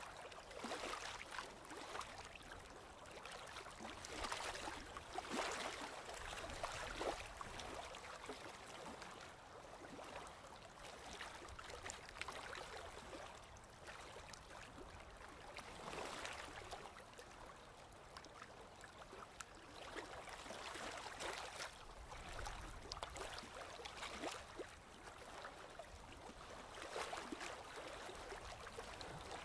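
Sea waves washing in and drawing back. The hiss swells and fades every few seconds, with fine crackling through it.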